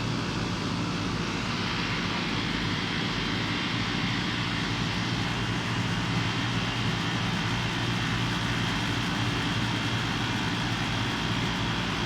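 Lennox air conditioner running steadily: a low electrical hum under an even rushing of fan air, with no change in speed.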